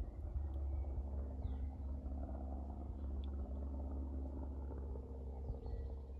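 A low steady rumble, with a few faint, brief bird chirps high above it.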